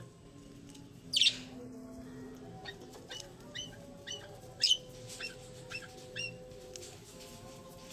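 A colony of budgerigars chirping: short, scattered high chirps from several birds, with a louder sweeping call about a second in and another a little past halfway.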